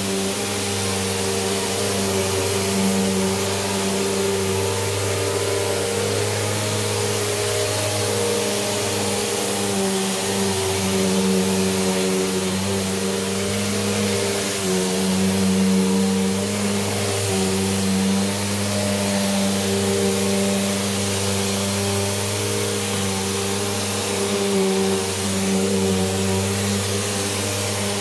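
Bissell PowerForce Bagless Turbo upright vacuum cleaner running steadily as it is pushed over carpet: a constant motor hum under a rush of air.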